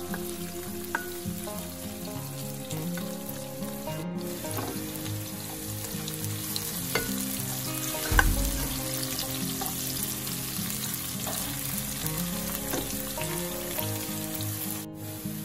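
Sliced onion and garlic sizzling in hot oil in a stone-coated wok while a spatula stirs them, with small crackles throughout. A single knock of the spatula against the pan about eight seconds in.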